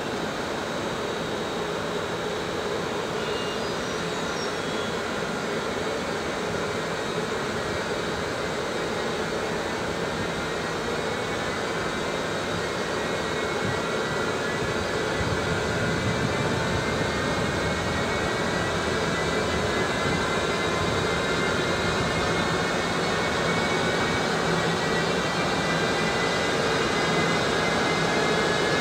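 BLS Cargo Siemens Vectron electric locomotive pulling away slowly. A steady hum carries several whining tones that slowly rise in pitch as it gathers speed, getting louder from about halfway.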